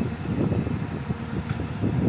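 Crawler excavator working: diesel engine running under load with irregular metallic clanking and scraping from the tracks and bucket on rock and soil.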